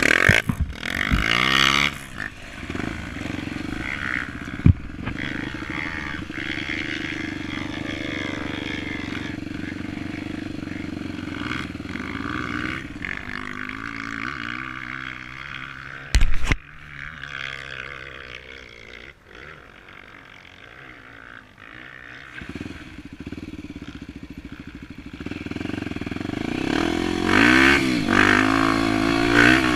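Honda XR 250 Tornado's single-cylinder four-stroke engine, bored out to 280cc with an aftermarket exhaust, pulling on a dirt trail. The revs rise and fall at first, then hold steady, drop to low revs in the middle and climb again near the end. A sharp knock comes about five seconds in, and a loud clunk comes around the middle.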